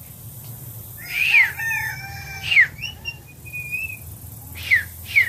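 A captive bird giving a run of varied whistles and chirps: gliding whistle notes, a few short held tones, and two quick falling whistles near the end.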